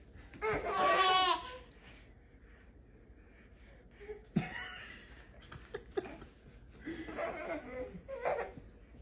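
A baby laughing: one loud burst of quick, bubbling laughter about half a second in, lasting about a second, then a few softer vocal sounds later on.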